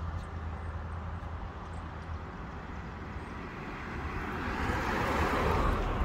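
Street traffic: a steady low rumble, with a passing vehicle that swells to its loudest about five seconds in and then fades.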